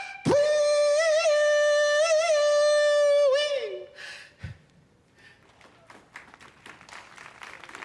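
A voice holding one long, buzzy note with a few brief wavers, sliding down and stopping about three seconds in: a mouth-noise sound-effect performance. Then only a faint noisy background, with a low thud halfway through.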